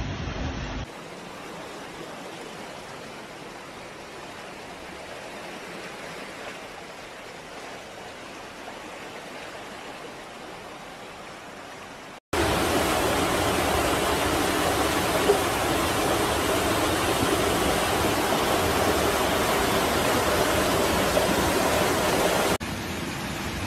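Rushing floodwater, a steady wash of noise. It breaks off briefly about halfway through and comes back much louder, as a fast brown torrent close by.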